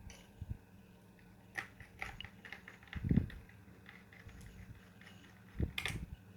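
Clicks and light knocks of laptop parts being handled and fitted back together by hand, with a few dull thumps, the loudest about three seconds in and another pair near the end.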